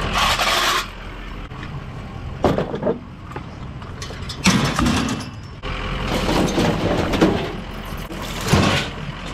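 A truck's engine and road noise running steadily, broken by several sharp knocks or rattles, the loudest about halfway through.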